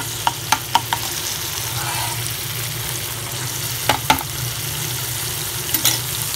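Ginger-garlic paste sizzling steadily in hot oil in a frying pan, stirred with a spatula that knocks against the pan: a quick run of clicks in the first second, two more about four seconds in, and two near the end.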